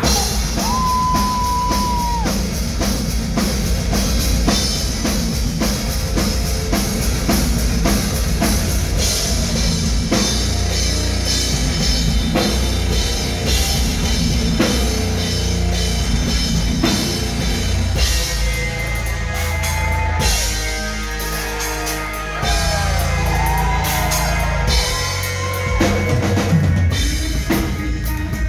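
Metal band playing live, loud: heavy drum kit with bass drum and cymbals over bass and distorted guitars. A singer's voice rises and falls over the band in the second half.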